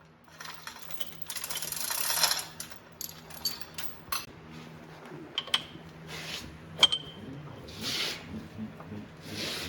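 Steel tools and transmission parts being handled: a rasping scrape for about two seconds, then a run of sharp metal clinks, the loudest ringing briefly about two-thirds of the way in, and short scrapes near the end. A steady low hum runs underneath.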